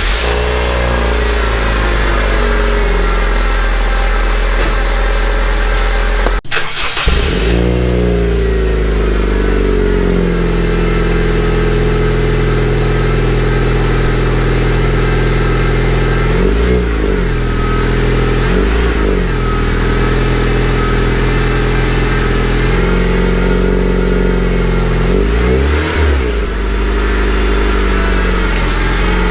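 Honda Civic FD's exhaust, a stock catalytic converter and resonator with a Tanabe Hyper Medallion chambered muffler, idling steadily and blipped through several short revs that rise and fall back to idle.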